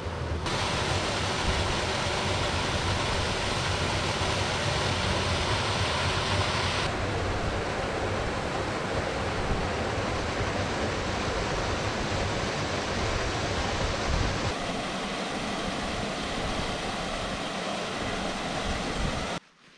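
Steady rushing of a mountain stream and small waterfall, with a low rumble under it for the first fourteen seconds or so. The sound changes abruptly about half a second, seven and fourteen and a half seconds in, and cuts off suddenly just before the end.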